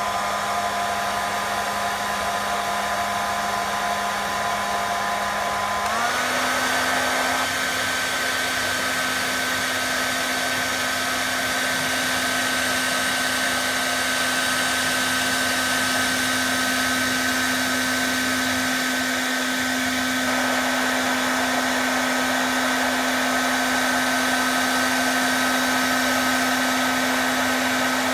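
Hair dryer running: a steady rush of air with a motor whine. About six seconds in the whine steps up in pitch, then holds steady.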